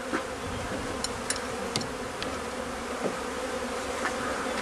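Many honeybees buzzing in flight around a just-installed package colony, a steady drone of wings with a few faint ticks in the first couple of seconds.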